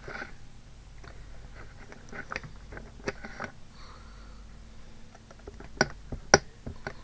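Scattered light taps and soft pats of paint being dabbed onto a box, with two sharper knocks about six seconds in.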